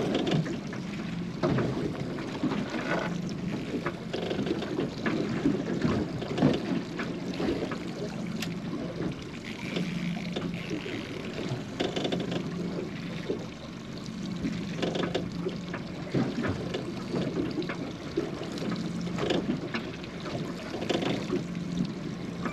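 A fishing boat's engine idling with a steady low hum, with irregular knocks and splashes of water against the hull over it.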